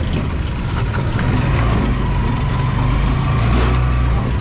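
Motorcycle tricycle's engine running steadily as it drives along a dirt road, heard from inside the sidecar.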